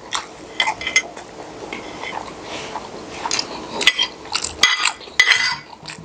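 Cutlery clinking and scraping against a plate while eating, in short, irregular clinks about a second apart.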